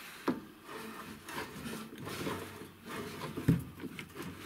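TV-16 lathe carriage being wound along the bed by its handwheel: uneven scraping and rubbing of the slide and gearing, with a knock just after the start and another about three and a half seconds in.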